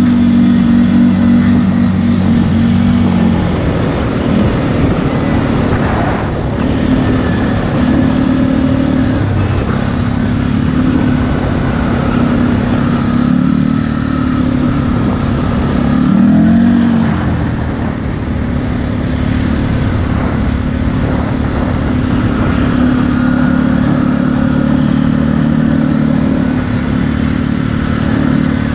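ATV engine running while riding, its pitch rising and falling with the throttle, with a rev-up about two-thirds of the way through.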